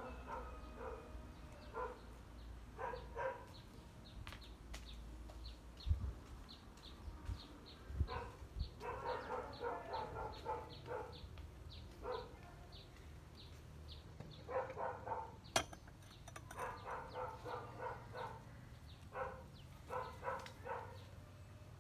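A dog barking and yipping in short repeated bursts, broken up by a few sharp knocks.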